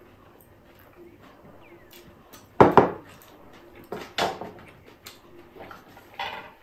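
Glass bowl set down on a wooden table: a sharp double knock, the loudest sound, followed by a few more knocks and clinks of glass dishes moved on the table.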